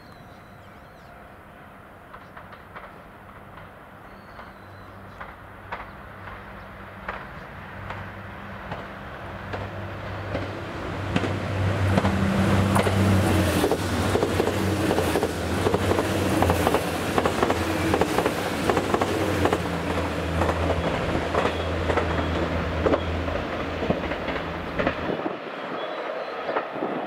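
HC85-series hybrid diesel express train passing at speed over a Y-shaped turnout. A steady engine hum swells as it approaches, then turns into a loud rush with a rapid clatter of wheels on the rails and points. The sound cuts off abruptly near the end.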